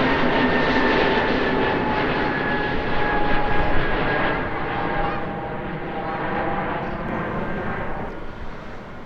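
Jet airliner engines passing by and moving away: a dense rushing noise with a whine that slowly falls in pitch, fading over the last few seconds.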